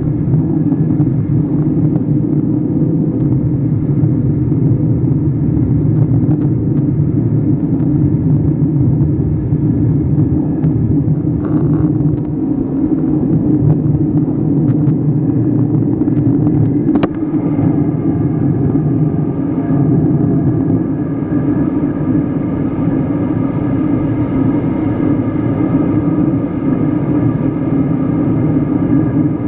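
Airliner cabin noise on the approach to land: a steady low drone of the engines and the air rushing past the fuselage, heard from a seat over the wing. A little past halfway there is a single sharp click, after which a faint thin whine runs on above the drone.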